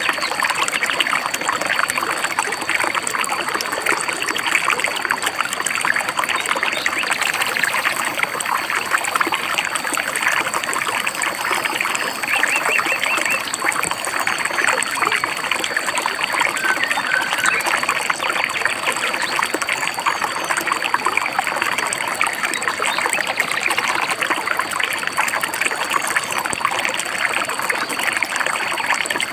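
Shallow stream babbling and trickling steadily over rocks. A bird gives a short rapid trill about twelve seconds in, and a couple of brief chirps follow a few seconds later.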